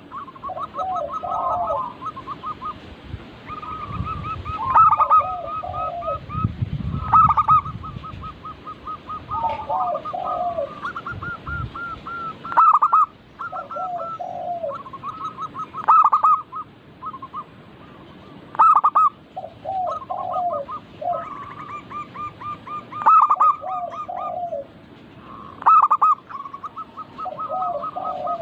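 Zebra doves (perkutut) cooing: the same phrase repeats every few seconds, a fast run of short notes followed by lower notes and one loud accented note. A low rumble runs underneath for several seconds early on.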